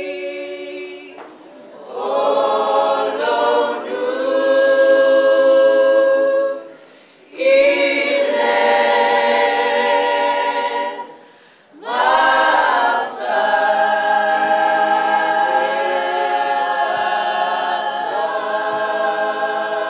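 A choir singing unaccompanied in long held phrases, with three short breaks between phrases.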